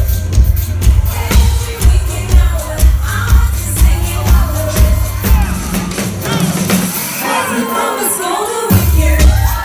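Live dance-pop music over a concert sound system, with singing above a heavy bass beat at about two beats a second. The bass drops out for about two seconds near the end, then kicks back in.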